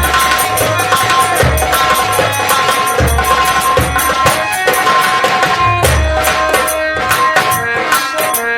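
Nautanki folk ensemble playing: a fast, unbroken roll of drum strokes over deep drum hits about every second and a half, with a held melody line above.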